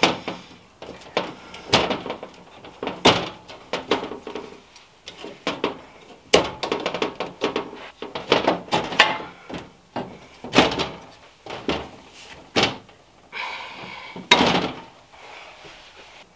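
Irregular clicks, knocks and rattles of plastic clips and fittings being worked loose and pulled from an IKEA SKÅDIS pegboard, with a short scraping rasp about 13 seconds in.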